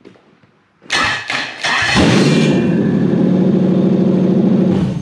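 Toyota 1UZ-FE V8 engine cranked by its starter for about a second, catching about two seconds in and running at a steady speed before being shut off near the end. It is running on larger injectors than its early ECU is set for, so it runs rich.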